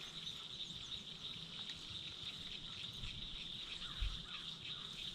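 A steady high-pitched insect chorus, with a few faint bird chirps and a single low thump about four seconds in.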